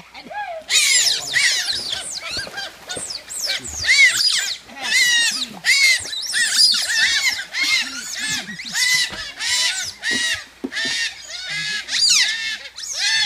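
A group of otters calling together at feeding time: many overlapping high-pitched squealing chirps, each a short rise and fall, repeated almost without pause.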